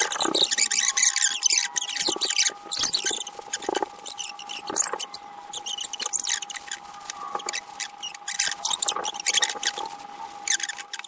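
Irregular hissing rubbing strokes with a few small squeaks, over a faint steady hum.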